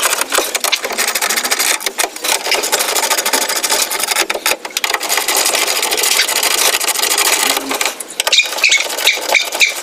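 Rapid, continuous clicking of a hand ratchet as bolts on the engine-bay covers are run in, over a steady hiss.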